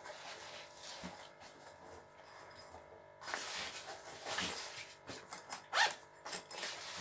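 Zipper of a padded guitar gig bag being drawn open, with the bag's nylon fabric rustling. The first part is quieter handling, and the zipping and rustling grow louder about three seconds in.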